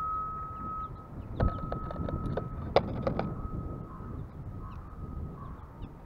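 A vehicle's reversing alarm sounding a steady high tone that fades out about four seconds in, over a low rumble of traffic, with a few sharp clicks a second or two in.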